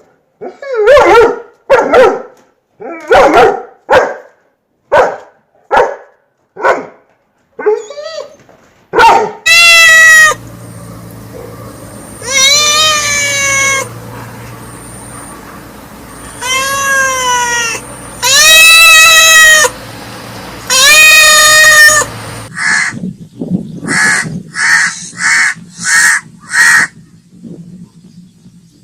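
A dog barking, about nine short barks over the first nine seconds. Then five long animal cries, each one to two seconds with the pitch rising and falling, over a low steady hum, and near the end a quick run of about seven short calls.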